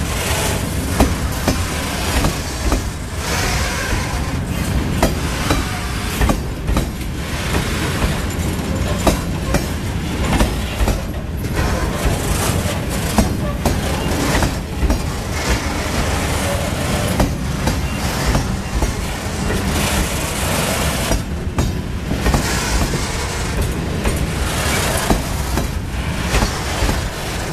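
Wagons of a loaded freight train rolling past: a steady rumble of steel wheels on rail, broken by frequent irregular clicks and clanks.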